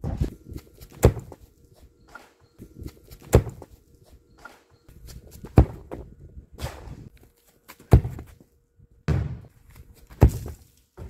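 Sharp thuds of a football being struck, about one every two seconds, the last a hard kick near the end, with scuffing footsteps on grass and dirt between them.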